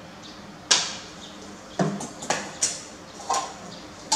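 Spoon and ceramic plates clinking and knocking on a tabletop as food is served and dishes are moved: about six sharp clicks spread over three seconds, the first the loudest.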